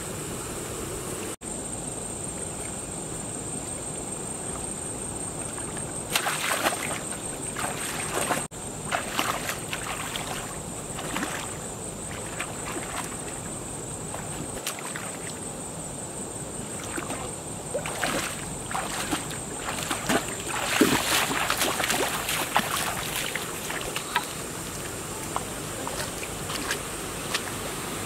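Splashing and sloshing of feet wading and a bamboo spear jabbing in shallow muddy water, in irregular bursts about six seconds in and again around twenty seconds in, over a steady high-pitched buzz.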